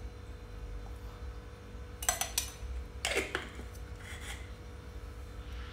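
A metal spoon clinking and scraping against a glass bowl a few times, starting about two seconds in, as ground black pepper is tapped out over raw chicken pieces.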